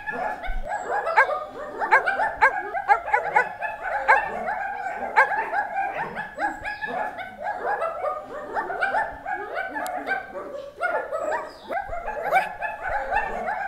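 Several dogs barking over one another in a dense, unbroken chorus of short calls.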